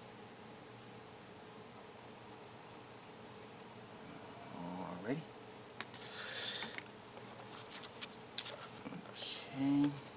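A steady, high-pitched chorus of insects that does not change, with papers and cards rustling and clicking as they are handled in the second half.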